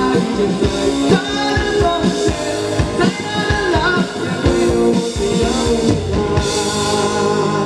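Live pop-rock band playing an instrumental passage: electric guitar lines with pitch bends over a steady drum beat and bass.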